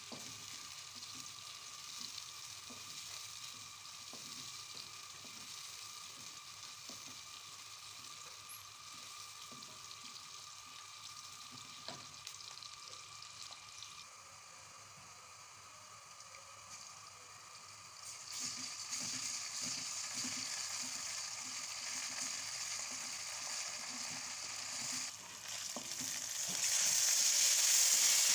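Sliced onions frying in oil in a pan, sizzling steadily while a wooden spatula stirs and scrapes them. The sizzle grows louder about eighteen seconds in and again near the end.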